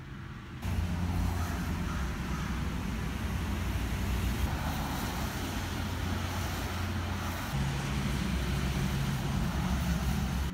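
Steady low background rumble with a faint hum and no distinct events, jumping abruptly in level about half a second in and shifting again near the end.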